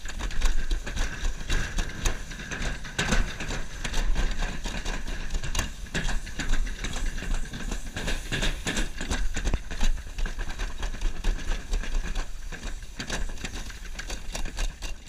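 Summer toboggan sled running fast down a stainless-steel trough: a continuous rumble and hiss with a steady high whine and frequent knocks and rattles.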